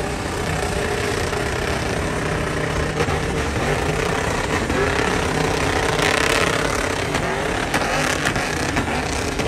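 Pickup truck engines held at high revs as the trucks spin their rear wheels through doughnuts on dirt, steady throughout, with a brief swell of hiss about six seconds in.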